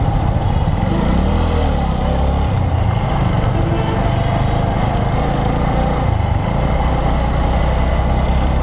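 Motorcycle engine running at low road speed, heard from the rider's seat along with road and wind noise on the helmet microphone.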